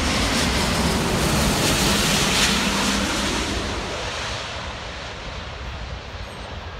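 Jet roar of an Airbus A350-900's Rolls-Royce Trent XWB turbofans just after the airliner passes low overhead on final approach. The roar is loud for the first three seconds or so, then fades as the aircraft moves away, with some wind noise on the microphone.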